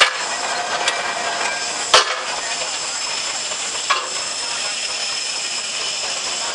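Steam shovel working, its steam engines giving a steady loud hiss, with three sharp knocks about two seconds apart, the loudest about two seconds in.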